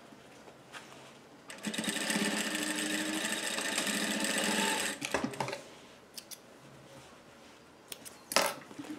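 Industrial flatbed lockstitch sewing machine running steadily as it stitches a seam. It starts about a second and a half in and stops just before the five-second mark, followed by a few light clicks and taps.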